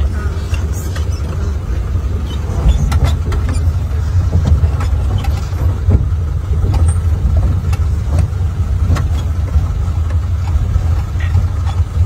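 Vehicle ride heard from inside the cabin through an open window: a steady low rumble of engine and road noise as it drives slowly down a paved road, with frequent short knocks and rattles from bumps.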